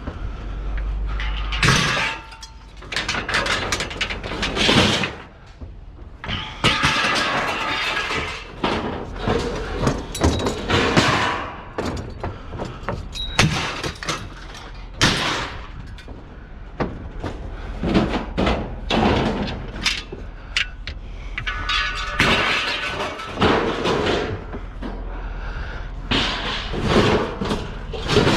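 Scrap metal being unloaded and dropped onto a scrap pile: an irregular run of clanks, crashes and thuds, some pieces ringing briefly after they land.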